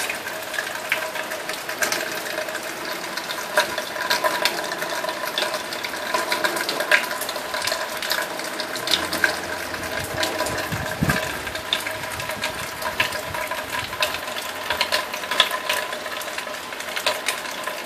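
Steady rain, with a continuous wash and many close drops pattering, and a few faint steady tones underneath.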